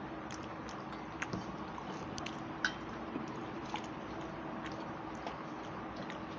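People eating rice by hand from paper plates: quiet chewing and fingers squishing food, with scattered small clicks, the sharpest about two and a half seconds in. A steady low hum runs underneath.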